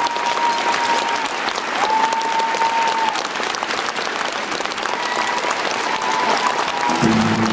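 Theatre audience applauding, with a few long, high held cries rising above the clapping. Instrumental music starts near the end.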